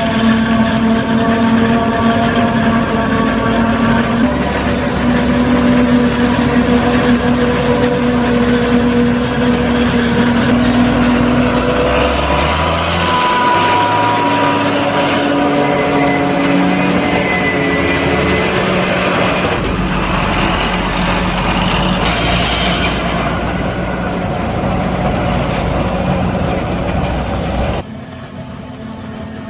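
Diesel engines of a forage harvester and a John Deere tractor pulling a forage wagon running hard side by side while maize is chopped and blown into the wagon. The engine tone shifts about a third of the way in, and the level drops suddenly near the end.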